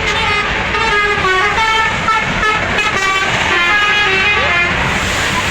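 Bus telolet basuri musical horn playing a quick tune of short held notes, the pitch stepping to a new note every fraction of a second, over the bus's running noise.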